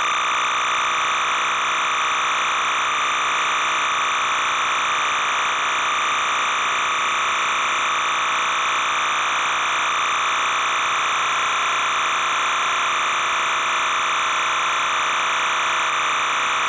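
Steady, unchanging buzzing hiss that does not follow the play on the field.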